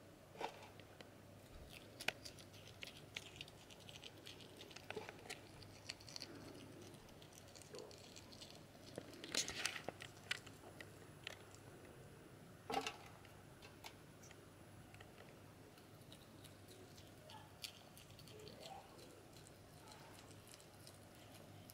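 Faint scattered clicks and crunching of a slow loris eating house crickets from a clear plastic tub, with a louder cluster of clicks about nine seconds in and another near thirteen seconds in.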